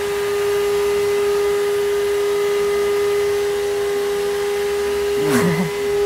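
Cordless stick vacuum cleaner's motor running steadily: an even whine over a rush of air.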